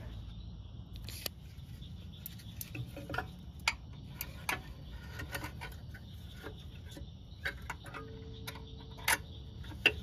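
Scattered small metallic clicks and taps at an uneven pace as a horn's mounting bracket and bolt are fitted by hand to a golf cart's steel frame.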